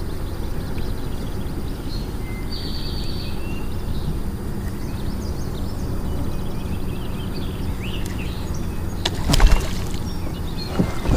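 Small birds chirping over a steady low outdoor rumble, with a sudden loud splash in the water about nine seconds in.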